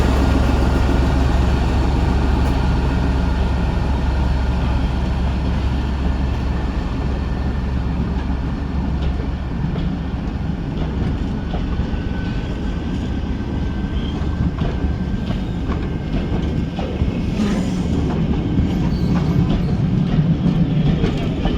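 A heritage train running along the line: a steady rumble of carriage wheels on the rails, with a deeper hum in the first few seconds that eases off. A thin high squeal comes and goes.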